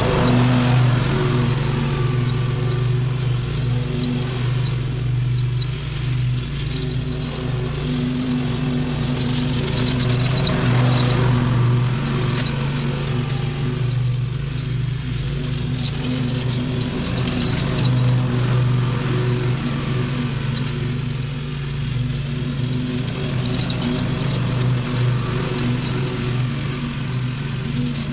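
Lawn mower engine running steadily at a constant speed, its sound swelling and fading every several seconds.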